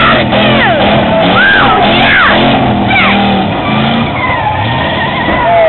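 Loud demolition-derby din: car engines revving under repeated high whoops and screams that rise and fall, with music mixed in.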